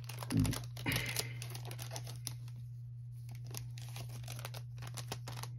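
Foil trading-card pack wrapper crinkling as the cards are pulled out by hand: a couple of soft thumps in the first second, then light crackles and clicks, over a steady low hum.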